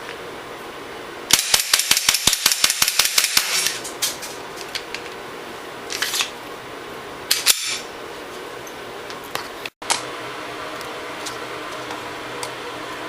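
KWA Glock 17 gas blowback airsoft pistol firing a rapid string of about a dozen sharp shots in about two seconds, each a crack of gas with the slide cycling. A few scattered softer clicks and knocks follow.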